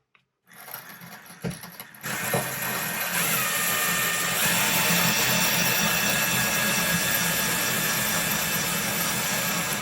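Power drill fitted with a Bosch CYL-9 Ceramic tile bit, grinding into a ceramic wall tile: it starts about two seconds in and runs steadily with a high whine, its pitch dipping briefly soon after it starts. A few faint clicks come before it.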